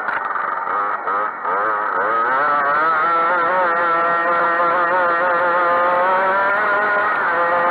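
Grass kart engine heard from on board under racing throttle: the revs drop briefly about a second in, climb back up, then hold high with a quick wobbling rise and fall in pitch.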